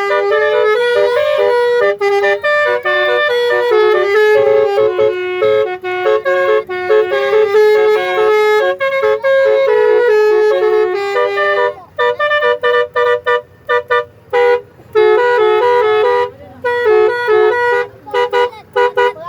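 Basuri telolet bus horn playing a tune: loud, reedy, clarinet-like notes stepping up and down in a melody. Nearly unbroken at first, it turns more choppy with short gaps in the second half.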